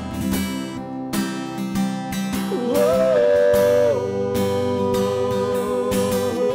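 Acoustic guitar strummed in a sertanejo song, with two male voices singing; from about the middle they hold long notes together.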